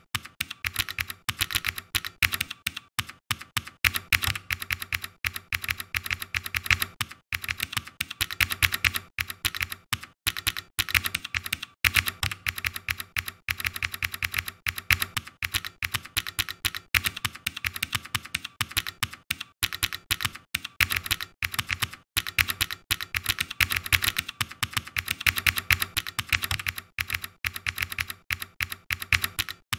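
Typing on a computer keyboard: a fast, dense run of key clicks broken now and then by short pauses.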